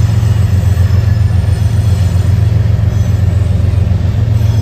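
GE ES44DC diesel-electric locomotive, the rear distributed-power unit of a loaded potash train, passing with a steady, deep engine drone.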